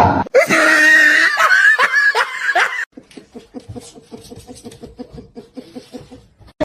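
A person laughing loudly for about three seconds, then quieter, rapid short bursts of laughter.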